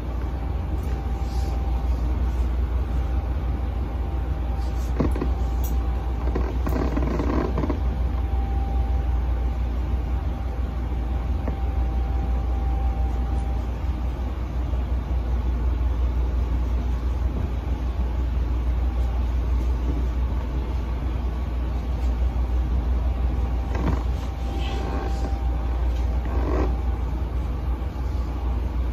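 Steady low rumble throughout, with a few soft rustles of material being handled about five to seven seconds in and again near the end.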